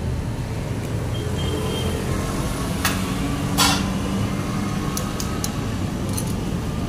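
Steady road-traffic rumble with a faint engine hum. A few short sharp clicks sound over it, with a brief scrape about three and a half seconds in.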